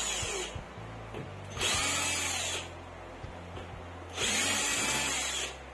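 A handheld electric power driver runs in three short bursts of about a second each, spinning up and winding down each time, as screws are backed out to take the receiver's boards apart.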